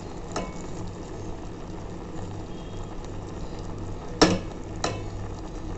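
Jamun fruit pulp bubbling at the boil in a metal pot as powdered country sugar is tipped in. Two sharp knocks a little past four seconds in, about half a second apart.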